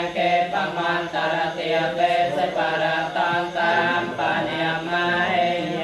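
Theravada Buddhist monks chanting Pali paritta verses in a steady, sung recitation.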